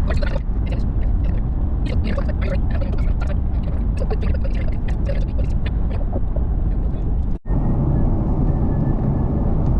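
Steady low road and engine rumble inside a moving car's cabin, with faint scattered clicks in the first six seconds. The sound cuts out for an instant about seven and a half seconds in.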